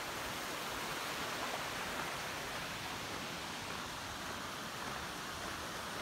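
Steady rushing of a creek below in a ravine: an even, unbroken hiss of running water.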